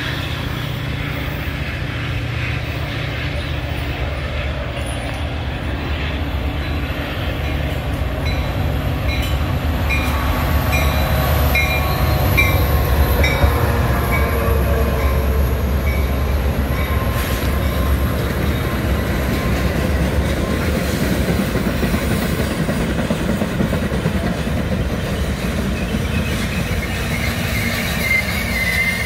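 A Metra passenger train passing close by: the diesel engines of two F40-series locomotives run with a heavy low hum, and then the bilevel coaches roll past. About a third of the way in, a run of evenly spaced wheel clicks at about two a second can be heard, and near the end there is a wavering wheel squeal.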